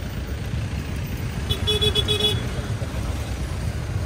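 A vehicle horn honks in a few quick toots about a second and a half in. Under it runs the steady low rumble of a scooter riding in heavy city traffic.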